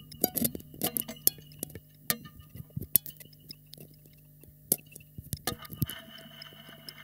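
Experimental improvised music: scattered sharp clicks and glassy clinks of small objects over a steady low hum. About six seconds in, the clicks thin out and a denser, steady hiss with a high tone takes over.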